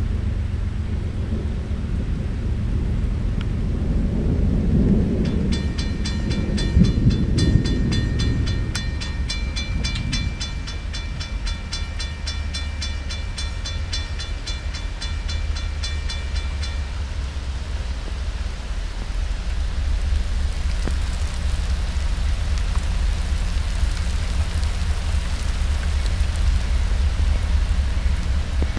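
Thunder rumbling, swelling for several seconds near the start, over steady rain that grows heavier toward the end. For about ten seconds in the first half, a fast, evenly pulsed ringing of several tones sounds over it.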